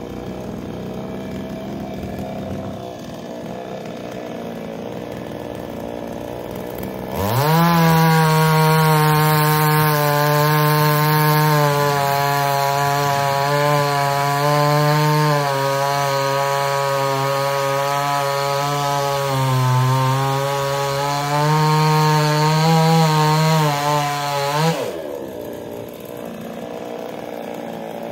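Two-stroke chainsaw idling, then revved to full throttle about seven seconds in and held there, cutting through a log with a brief dip in speed partway. It drops back to idle near the end.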